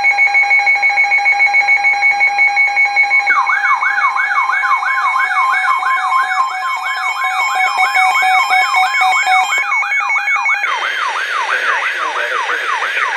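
Electronic weather-alert alarm: a rapidly pulsing steady beep starts suddenly, and about three seconds in a fast up-and-down siren sweep joins it, roughly two to three sweeps a second. The beep stops near the end while the siren sweep carries on.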